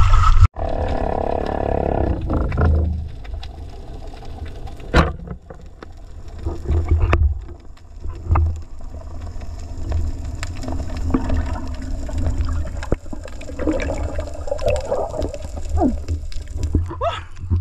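Water sounds from a camera going under about half a second in, after which it is heard from underwater: a steady low rumble of water movement with scattered sharp clicks and knocks.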